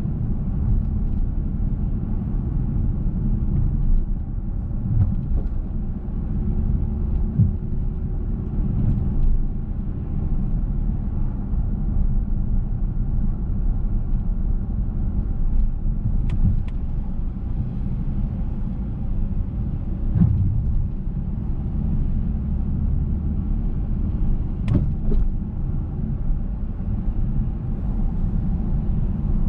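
Car driving on a city street: a steady low rumble of engine and tyre road noise, with a few faint knocks, the clearest near the end.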